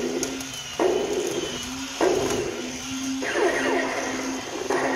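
The 1994 Robot Leader toy robot running after its repair: its motor turns it round while its electronic sound effects repeat about once a second over a steady low tone, with a run of falling tones about a third of the way in.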